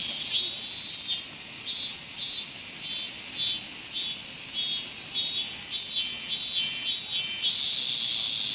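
Robust cicada (minmin-zemi) singing its repeated pulsing call, about two phrases a second, which stops near the end. A steady high hiss runs underneath.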